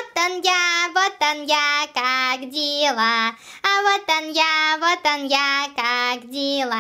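A high child's voice singing a children's song, a quick run of short notes each held at a steady pitch.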